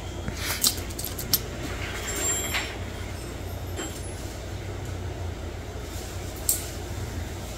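A few sharp clicks from the steel nail nippers and metal probe working at the edge of an ingrown toenail: two close together about half a second and a second and a half in, and another near the end. Under them runs a steady low rumble.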